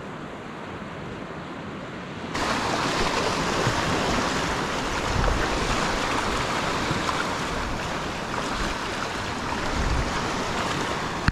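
Shallow surf washing up a sandy beach, with wind noise on the microphone; the sound turns suddenly louder about two seconds in.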